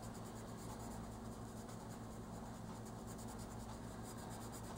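Oil-based colored pencil rubbing on coloring-book paper in light, steady strokes, blending the edges of the colour: a faint, even scratching. A low steady hum sits underneath.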